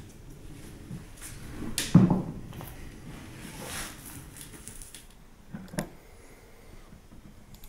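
Woodworking glue-up handling noises: a loud knock about two seconds in as the glass glue jar is set down on the wooden bench, then a soft swish of a small roller spreading glue over a board, and two short knocks a little later.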